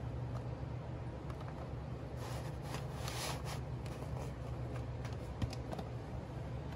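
Bag rustling and cornstarch sliding out as the last of a bag of cornstarch is emptied into a glass bowl, in one brief burst a couple of seconds in, over a steady low hum.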